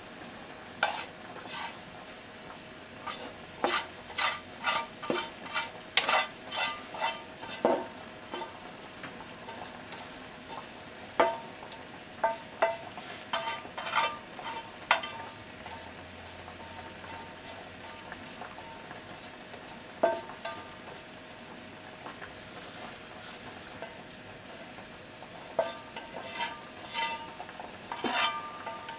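Wooden chopsticks scraping and tapping against a frying pan as stir-fried macaroni is pushed out of it, in short runs of sharp clicks about two a second, over a faint steady sizzle from the hot pan.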